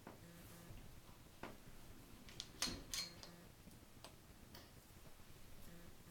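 Faint, scattered small clicks and taps from golf driver parts being handled while the shaft is swapped, with a louder pair of clicks about halfway through.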